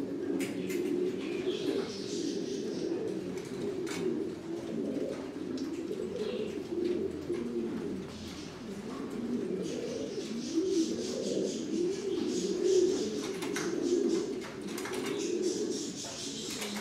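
A loft full of caged domestic pigeons, Buchón Gaditano pouters, cooing together in steady, overlapping low coos, with a few light clicks scattered through.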